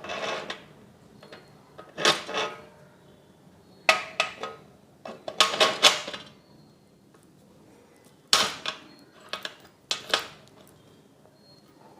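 Metal clanks and rattles from handling the C stand's grip head clamp and boom arm: about seven short clusters of sharp knocks, a second or two apart.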